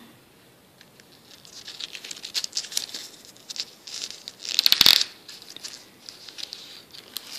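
Paper pages of a spiral-bound booklet rustling and crinkling as fingers handle and leaf through them, with a louder rustle about five seconds in.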